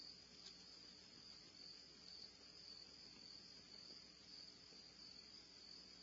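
Faint, steady high-pitched insect chorus, a continuous shrill trill with no break.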